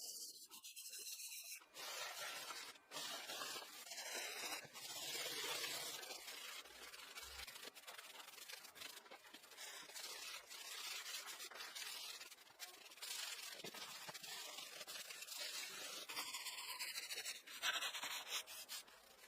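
Scratchy rubbing strokes on the wood of an old ice box, as in hand restoration work, going on in runs of a few seconds with short breaks and a few sharp ticks.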